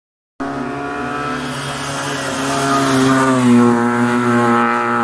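Race car's engine running at high revs as the car comes up the road, growing louder, its pitch rising about three seconds in.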